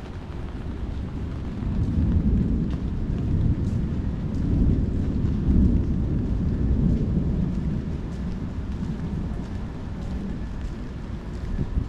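Rolling thunder: a deep rumble that builds about two seconds in, peaks mid-way and slowly dies back down.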